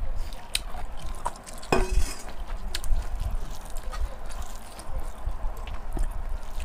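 Hands mixing rice and pork on a wooden platter, with scattered clicks and knocks from a stainless steel bowl and the platter, one louder clink with a short ring a little under two seconds in.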